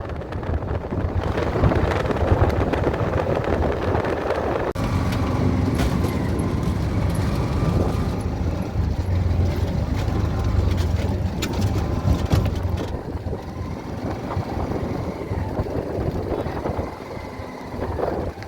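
An engine running steadily with a low rumble, among outdoor noise and scattered sharp knocks.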